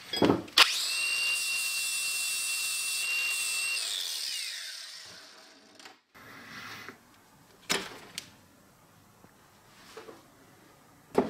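A small high-speed power tool whines steadily for about three seconds, then spins down with a falling pitch and fades out. A few light clicks and knocks of small metal parts being handled follow later.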